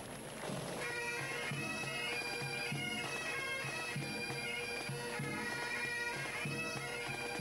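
Pipe band playing a march: a bass drum beating steadily about twice a second, and about a second in the bagpipes strike in, playing a tune over their steady drone.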